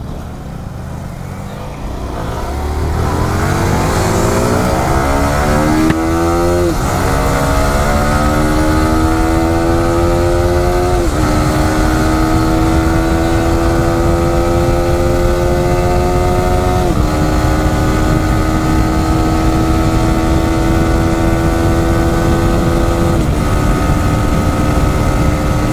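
Yamaha R15 V4's 155 cc single-cylinder engine accelerating hard, its pitch climbing through each gear and dropping sharply at four upshifts. A heavy low wind rumble runs under it.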